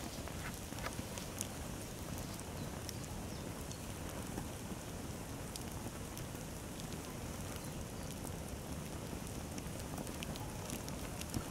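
Small open fire crackling as it burns a hanging pair of fluffy fabric pants: a steady rushing of flames with scattered sharp pops at irregular moments.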